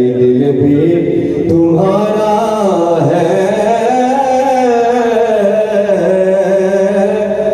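A man singing a naat, the Urdu devotional poem in praise of the Prophet, drawing out long notes that waver slowly in pitch, with a short break about two seconds in.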